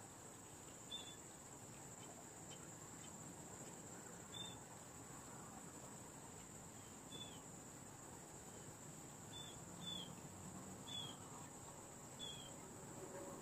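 Faint, steady, high-pitched trilling of insects, with a small bird giving short, high chirps about seven times over it.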